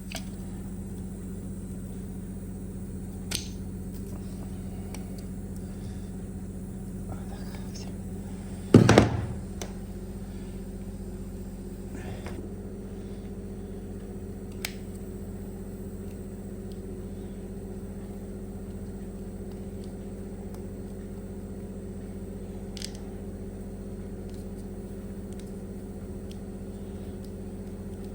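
A steady electrical hum from running equipment. It is broken by a few light clicks and one louder knock or clatter of handled parts about nine seconds in.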